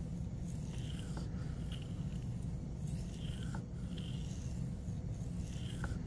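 Knife blade stroked along a wet fine polishing stone (7/5 micron) in freehand sharpening: short, soft scraping strokes repeating about once a second over a steady low hum.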